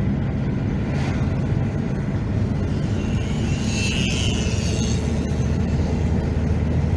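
A car driving along a road, heard from inside the cabin: a steady low rumble of engine and road noise, with a brief hissing swell about three to four seconds in.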